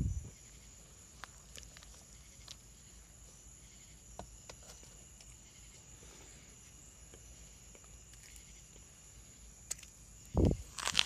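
Dry cornstarch chunks being chewed with faint, sparse crunching clicks. Near the end comes a short low thump, then a louder crisp crunch as another bite is taken.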